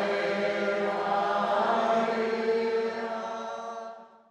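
Voices singing a hymn in long held notes, fading out about four seconds in.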